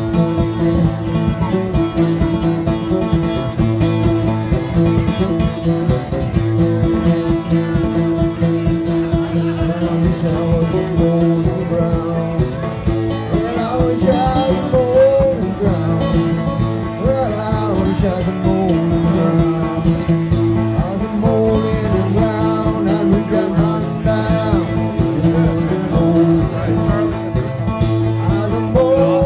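Banjo and acoustic guitar playing an old-time bluegrass tune together, with a voice singing along for a stretch around the middle and again near the end.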